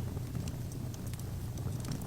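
Wood fire burning in an open fireplace: a steady low rumble of flames with scattered small crackles and pops from the burning logs.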